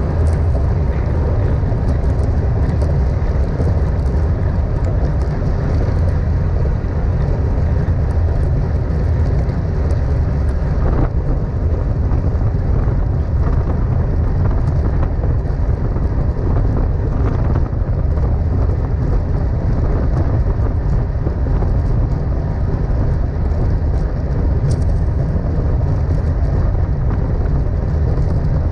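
Steady low rumble of wind buffeting an action camera's microphone while a road bike is ridden at racing speed.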